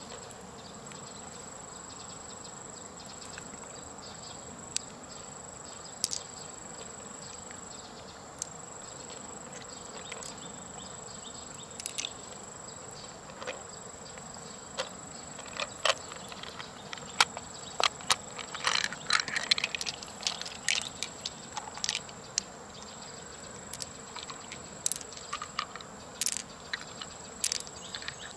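A steady high-pitched insect call runs throughout, with scattered short sharp clicks and taps from fingers pressing pearls out of the flesh of an opened giant freshwater mussel, sparse at first and coming thick and fast in the second half.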